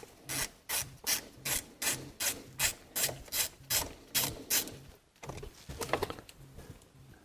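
Hand ratchet with a small inverse Torx socket backing out a steering-column screw: the pawl rasps in a steady run of about a dozen short strokes, roughly three a second, which stops a little past halfway. A few faint handling noises follow.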